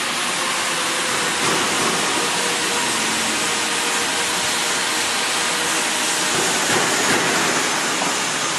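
Electric vegetable slicing machine running: a steady whirring hiss with a faint constant motor hum.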